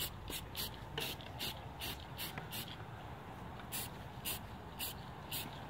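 Aerosol spray paint can hissing out red paint in a string of short bursts, about two or three a second, with a brief pause about halfway through.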